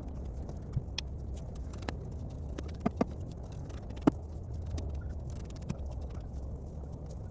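Shovel working soil: sharp, irregular clicks and scrapes of the blade, the loudest about four seconds in, over a steady low rumble.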